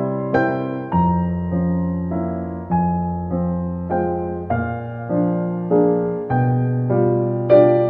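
Background piano music: slow, gentle chords with a low bass note, a new note or chord struck about every half second and left to fade.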